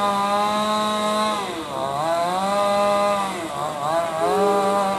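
Small engine running at high revs, held steady, then dropping off and revving back up twice.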